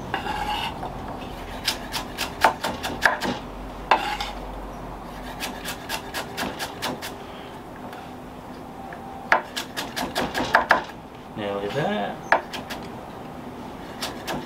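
Chef's knife slicing a carrot on a wooden chopping board: quick runs of sharp knocks as the blade strikes the board, with pauses between the runs.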